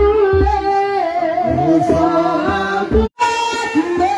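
Worship singing: voices singing a hymn with music, with low thuds underneath. The sound drops out for a moment about three seconds in.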